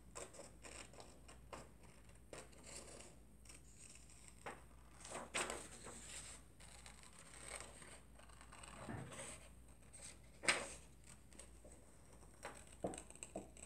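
Scissors snipping through a sheet of construction paper, cutting out a traced shape: a faint, irregular run of snips and paper rustles, with louder cuts about five and ten seconds in.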